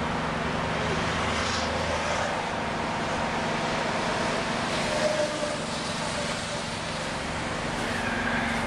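An engine running steadily: a constant low hum with a noisy drone over it, unchanging throughout.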